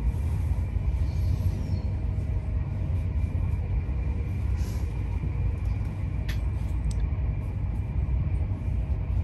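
Steady low rumble of a passenger train running at speed, heard from inside the carriage, with a couple of short sharp clicks about six seconds in.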